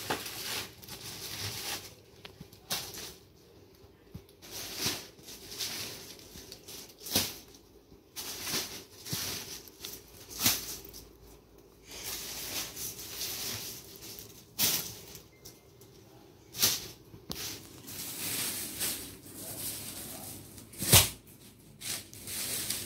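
Plastic packaging on wrapped bundles of clothing rustling and crinkling in short irregular bursts as it is handled, with one sharp knock near the end.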